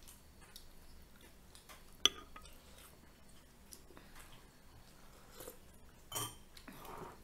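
Eating sounds from deep-fried chicken phaley and soup: soft chewing and scattered faint clicks. A sharp clink of a metal spoon on a ceramic soup bowl comes about two seconds in, and a louder burst of eating noise comes near the end.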